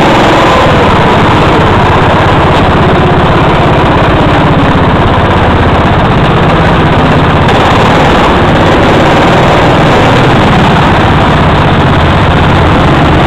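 A go-kart's small engine running loud and close, heard from on board the kart, with no break.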